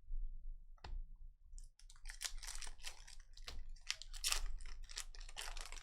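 Trading cards being handled and flipped through a stack: a single click about a second in, then a quick run of crisp clicks and rustles.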